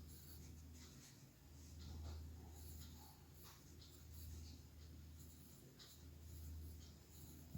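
Faint scratching of handwriting, a few light strokes at a time, over a low steady hum.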